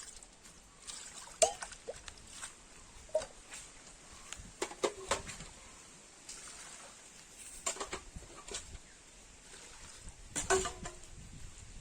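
Irregular knocks and clinks of kitchen utensils and cookware during food preparation, a few of the strikes ringing briefly; the loudest come about a second and a half in, around five seconds in, and near the end.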